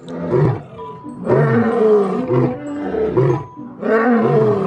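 Male lion roaring: a series of deep roars in quick succession, each one rising and falling in pitch.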